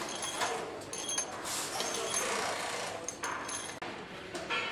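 Engine assembly line ambience: light metallic clinks and clatter of tools and engine parts being handled, with short high ringing tones, over a steady factory background noise.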